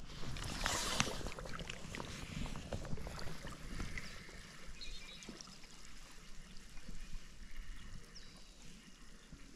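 Wind rumbling on the microphone, with faint clicks and handling noise from a spinning rod and reel as line is slowly retrieved. A short hiss of noise comes about half a second in.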